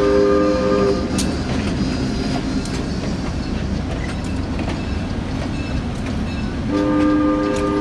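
Train horn sounding several notes at once, cutting off about a second in and sounding again near the end; in between, the train rolls by with a steady rumble and scattered clicks of wheels on the rails.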